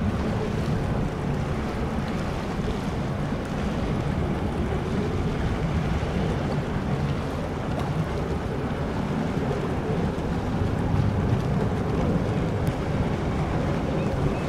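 Car ferry under way close by: a steady low rumble from its engines and wash, mixed with wind buffeting the microphone.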